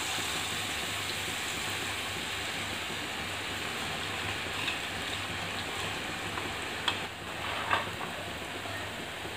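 Besan batter dripping through a perforated slotted spoon into hot oil, the boondi sizzling steadily as it fries. Two short clicks of metal utensils come about seven and eight seconds in.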